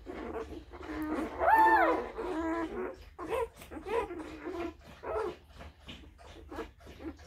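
Newborn Tibetan Mastiff puppies whimpering and squeaking in a quick string of short cries. About one and a half seconds in comes one louder, longer, high cry that rises and falls.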